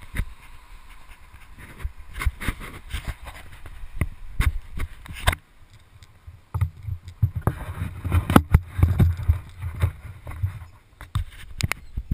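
Knocks, clicks and scrapes picked up by a helmet-mounted camera's microphone as the wearer moves about, with low rumbling buffeting on the microphone in the second half.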